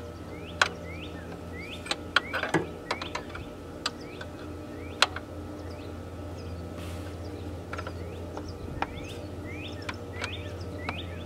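Scattered sharp metallic clicks and taps of hand tools working the brake line fittings on a brake master cylinder. Under them, small birds give short rising chirps in little groups, over a steady low hum.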